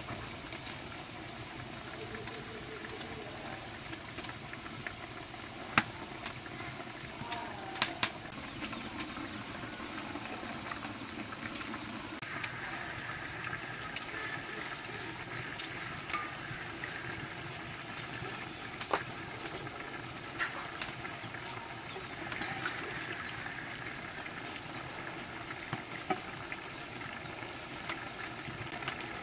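Steady hiss of a curry cooking in a large aluminium pot over a fire, with a few sharp clinks of utensils against the pot, two close together about eight seconds in.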